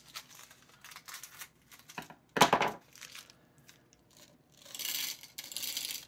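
A plastic candy packet cut open with scissors, one loud cut a little over two seconds in. Near the end, small candy balls pour rattling into the top of a plastic toy vending machine, with the packet crinkling.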